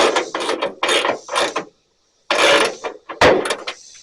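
Ratchet wrench clicking in quick back-and-forth strokes as bolts on a truck's hood hinge are tightened, with a brief pause a little under two seconds in.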